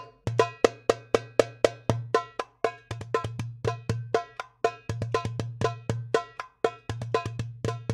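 Hand percussion from a hadroh ensemble, played through a sound system in a sound check. A drum is struck in a fast, even rhythm of about four strokes a second, each stroke with a short ringing tone, over a low bass hum. It starts abruptly right after a brief silence.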